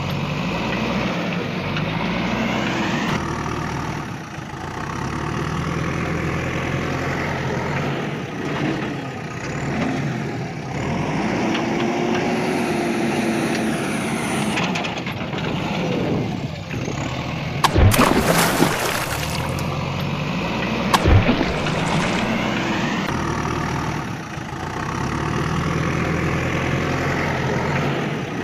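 Heavy vehicle engine running and revving throughout, rising and falling in pitch, with two sharp knocks a few seconds apart about two-thirds of the way through.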